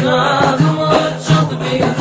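Turkish Sufi ilahi (hymn) with zikir: voices singing over a steady repeating low chant pulse and light percussion.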